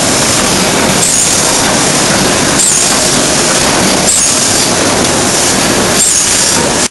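D51 ring rolling machine running while it rolls red-hot ring blanks: a loud, steady mechanical din with a short sound recurring about every one and a half seconds.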